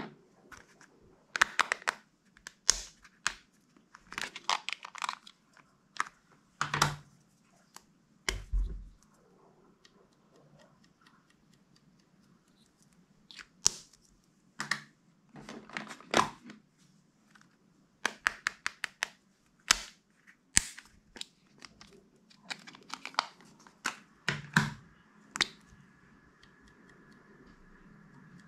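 Small plastic slime containers and packaging handled and opened close to the microphone: scattered clicks, crinkles and snaps, some in quick runs.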